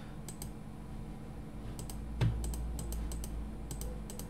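Clicks of a computer mouse and keyboard: a series of light clicks, several in quick pairs, with one louder knock a little past two seconds in. A low steady hum sits under them.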